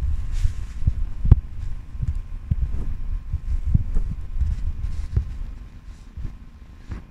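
Domestic cat purring close to the microphone: a low throbbing rumble with irregular soft thumps.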